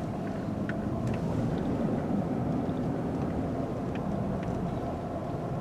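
Steady engine and road noise heard inside the cabin of a moving vehicle: a low rumble and hum with a few faint ticks.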